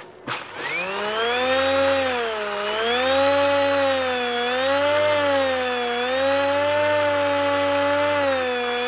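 Motor and propeller of an RC Icon A5 model seaplane spinning up about half a second in, after a short knock, as it runs across the water. Its buzzing whine rises and then swings up and down in pitch with the throttle, over a steady high thin tone.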